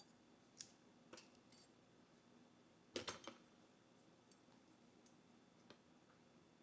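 Faint, sharp clicks of small metal parts of a Brinks deadbolt lock cylinder being handled as it is taken apart, with a quick cluster of several clicks about three seconds in.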